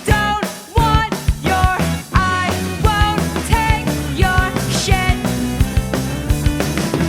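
Grunge-punk rock song played by a full band, with a drum kit keeping a steady beat and a sung vocal line over it.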